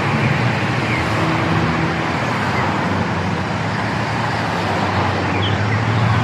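City street ambience: steady traffic noise of vehicles passing with engines running, and a few faint bird chirps, mostly near the end.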